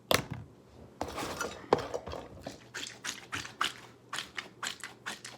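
Plastic fidget toys being handled and rummaged through: an irregular series of clicks, taps and rustles, the loudest a sharp knock right at the start.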